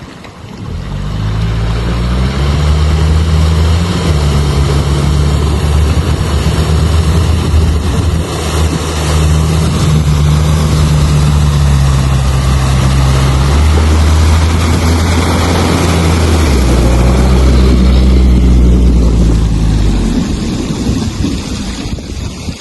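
All-terrain vehicle engine running loudly under way, its low drone shifting up and down in pitch several times.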